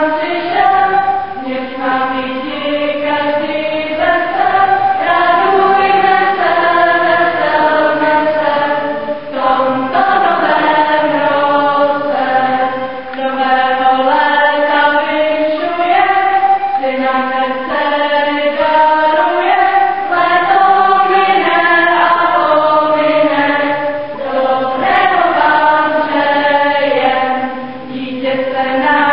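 A choir of children and young women singing together, holding long notes in flowing phrases with short pauses for breath.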